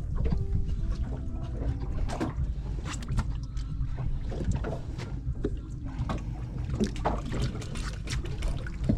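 Small boat on the water: a steady low engine and wind noise, with scattered short knocks on the hull and deck.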